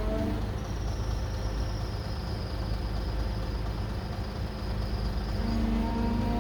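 Heavy diesel engine of earthmoving machinery running steadily, with a faint high whine over the low hum.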